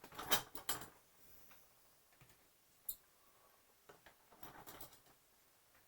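Light clicks and taps of small model parts being handled and pressed on. There are a few clicks at the start, one sharp tick about three seconds in, and a cluster of small clicks near the middle.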